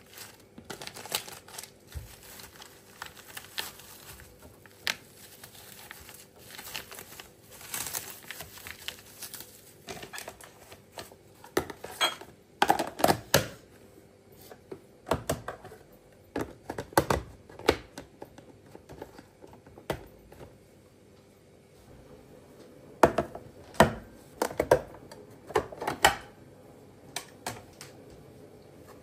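Irregular light clicks, taps and rustles of small objects being handled, coming in clusters, thickest about twelve seconds in and again in the last few seconds.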